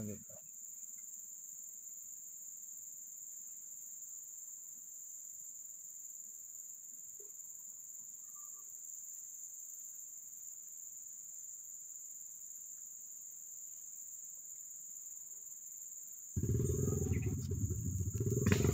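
Insects in the forest keep up a steady, high-pitched drone. About two seconds before the end, a louder low rumbling noise cuts in suddenly.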